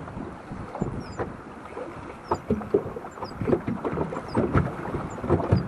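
Water slapping and lapping against a small boat's hull, with irregular knocks and clunks.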